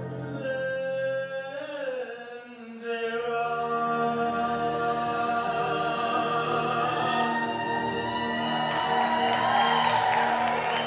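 Singing in long held notes over music with sustained chords; the music drops back briefly about two to three seconds in, then swells and grows louder toward the end.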